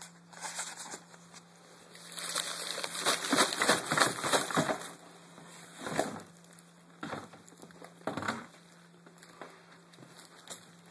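Plastic trash bag rustling and crinkling as it is handled and pulled out of the bin, densest a couple of seconds in, then a few separate knocks and lighter rustling as the bag is carried. A faint steady low hum sits underneath.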